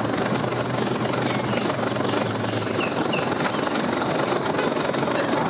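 An engine idling steadily with a low hum, and two short high chirps about three seconds in.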